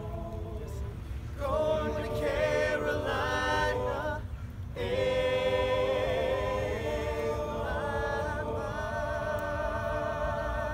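Men's a cappella group singing in close harmony without instruments. The chords swell about a second and a half in, break off briefly near the middle, then hold a long, sustained chord.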